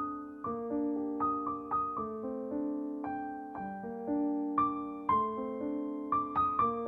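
Background piano music: a melody of struck notes, each fading out, over lower chord notes.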